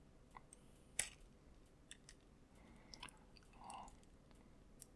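Near silence broken by a few faint, sharp metallic clicks of jewellery pliers working a jump ring on a magnetic clasp. The sharpest click comes about a second in.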